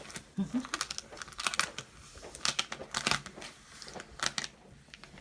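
Vinyl transfer tape crinkling and crackling in irregular snaps as it is handled, rubbed down and peeled on a glass cutting board.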